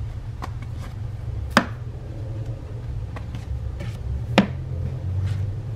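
Books being handled and set down on a wooden bookshelf: two sharp knocks, about a second and a half in and again a little past four seconds, with lighter taps between.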